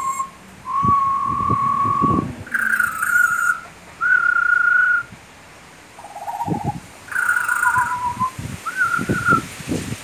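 Young butcherbird and a person whistling back and forth: a string of about eight clear whistled notes, each about half a second to a second long with short gaps between, some with a quick rise at the start. The person is imitating her song and she answers.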